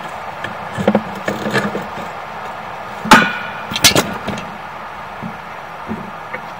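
Knocks and clatter of sewer inspection camera gear being handled. A few light knocks come about a second in, then two sharp, loud knocks about three and four seconds in, over a steady hum.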